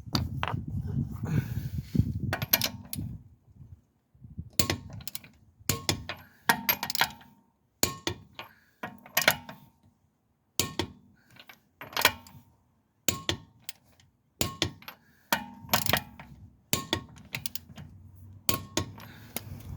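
Metal hand tools and car parts clinking and knocking against each other during brake work, in irregular sharp strikes, many with a short metallic ring.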